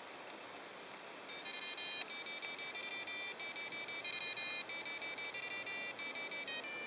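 Stepper motor of a homemade Arduino-controlled coop door running to lower the door after its photo sensor is darkened. It gives a high, steady whine that starts about a second in, broken into short pulses with brief gaps.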